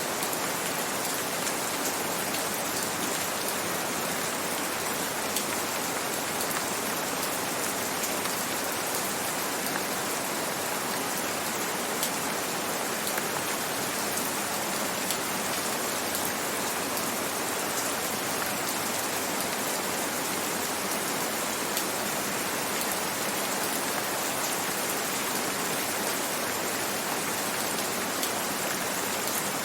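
Steady, even rain falling, with faint scattered drop ticks on a surface.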